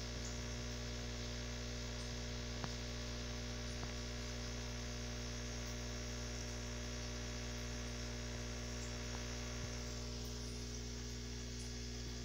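Steady electrical mains hum with several fixed tones, unchanging throughout, with two faint ticks about two and a half and four seconds in.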